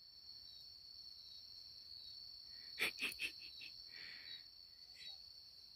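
Crickets chirring steadily in the night scrub, a faint continuous high-pitched band. About three seconds in comes a quick run of five or six sharp clicks.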